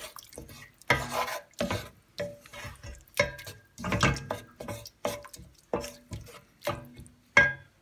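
Wooden spatula stirring a thick tomato masala gravy in a stainless steel pot, scraping and knocking against the pot in about ten uneven strokes, some with a short metallic ring.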